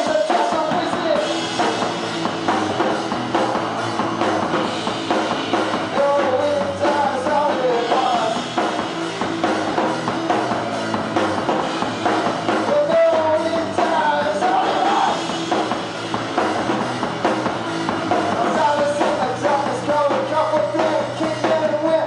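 Live rock music from a two-piece band: electric guitar and a drum kit playing loud and without a break.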